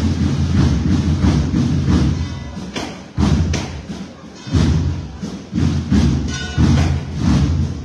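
Procession band music with heavy, repeated drum beats; the level drops briefly about three seconds in, then hard drum strokes start it up again.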